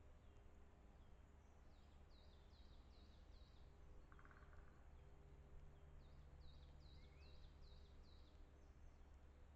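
Faint songbird song: two phrases of short, high, downslurred whistled notes repeated in quick series, four in the first and six in the second, over a steady low hum.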